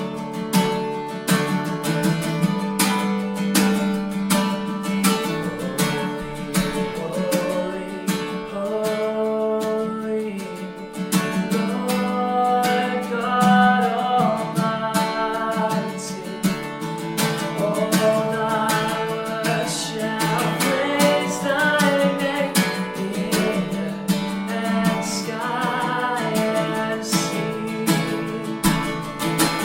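Worship song: acoustic guitar strummed steadily, with a voice singing the melody over it from about six seconds in.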